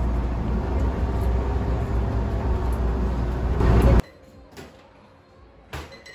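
A steady, loud low rumble of noise that cuts off abruptly about four seconds in, followed by two light knocks.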